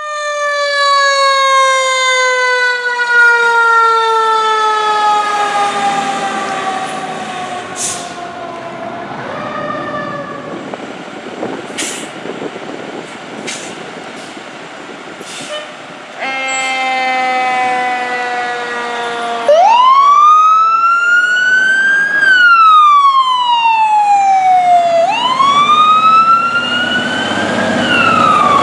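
Fire truck sirens as the apparatus pull out. First a siren slowly winds down in pitch over about nine seconds. After a quieter stretch with a few short sharp sounds, a steady blaring tone begins, then a siren wails up and down twice and starts a third rise near the end.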